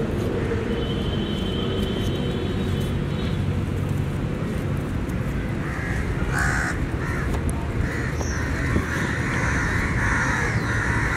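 Crows cawing repeatedly, starting about six seconds in, over a steady low outdoor rumble.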